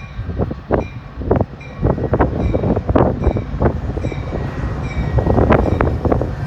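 Train passing close by: wheels clacking over rail joints in quick irregular clicks above a steady low rumble, the clacking getting denser and louder toward the end.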